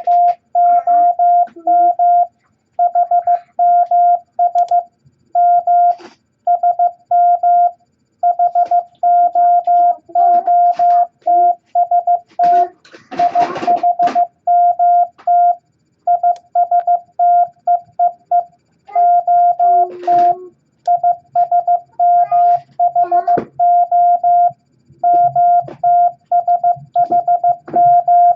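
Morse code practice tones: a single steady beep keyed into short and long elements (dots and dashes) at 15 words per minute, spelling random letters from the beginner set E, I, S, H, T, M, O in groups separated by short pauses. Faint clicks and knocks and a low hum lie beneath the tones.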